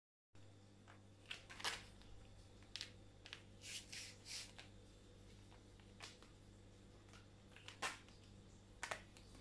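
Soft scattered scuffs, rustles and light clicks as two kittens bat, grab and scramble at a dangling cord toy with metal clips on a tile floor, over a faint steady low hum.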